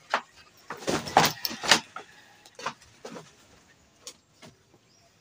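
Handling noise: irregular clicks, rustles and light knocks as cloth and small objects are handled, with a quick loud cluster about a second in and scattered single ticks after.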